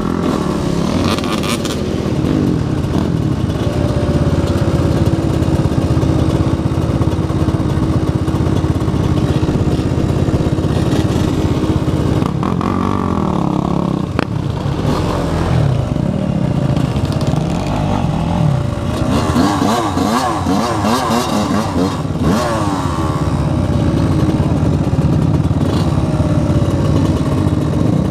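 Freshly rebuilt Yamaha YZ125 two-stroke dirt bike engine running under the rider, its pitch rising and falling with the throttle, mixed with other dirt bikes and an ATV revving nearby.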